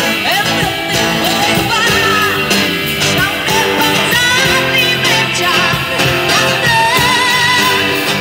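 Live street band playing rock music: a woman singing into a microphone over electric and acoustic guitars, bass and a drum kit.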